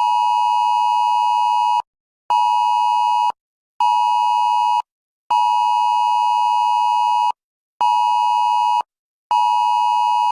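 Emergency Alert System-style two-tone alert signal, sounded as six loud beeps in a long-short-short, long-short-short pattern.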